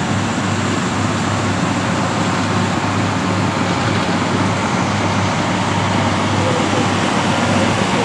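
Caterpillar D8R bulldozer diesel engines running steadily: a constant low drone under a broad rushing noise.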